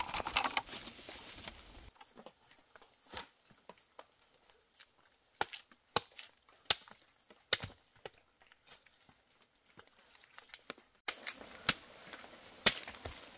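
A brief rustle, then sharp, irregular taps and clicks of hand work, a few seconds apart at most, with faint high chirps of a small bird between them in the first half.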